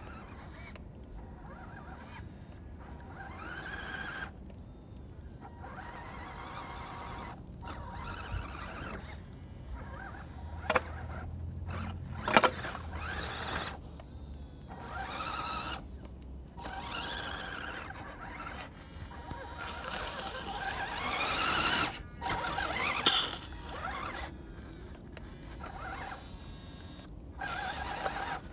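Radio-controlled Axial SCX10 crawler's small electric motor and gears whining as it pushes snow with its plow, the whine rising and falling in pitch with the throttle and stopping and starting often. A few sharp clicks come through, the loudest near the middle.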